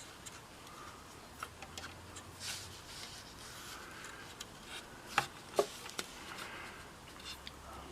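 Faint bench handling noises while wires are prepared for soldering: light rubbing with a few small, sharp clicks, the loudest pair a little past halfway.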